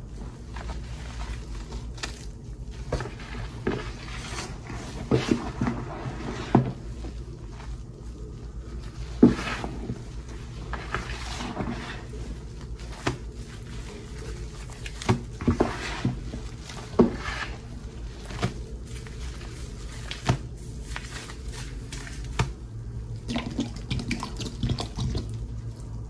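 A soapy sponge being squeezed and kneaded in a thick, fluffy dish-soap foam paste: wet squelching and crackling lather, with irregular sharper squishes and pops.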